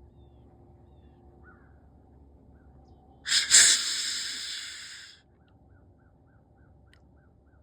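A buck deer's snort-wheeze, starting about three seconds in. A couple of sharp bursts of air through the nose run straight into a drawn-out hissing wheeze that fades away over about two seconds.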